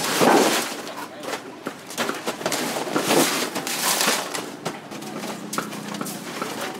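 Crushed ice tipped out of a plastic basket onto a stainless-steel counter, rattling and crunching as it spills. The loudest spill comes right at the start, with two more about three and four seconds in.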